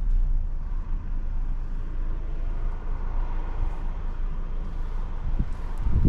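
Steady low rumble of road and engine noise inside a moving car, with a louder low buffet near the end.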